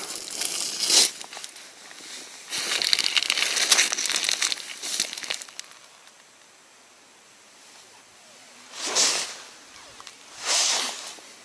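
Close rustling and crackling handling noise from winter clothing and gloves as the angler holds the ice rod, loudest in a dense stretch in the first half. Two short whooshes follow near the end, about a second and a half apart.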